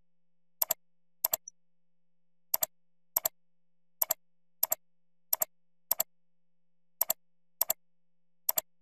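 Computer mouse clicks, each a sharp press-and-release double tick, coming in pairs about every one and a half seconds, about eleven in all, as objects are clicked one after another.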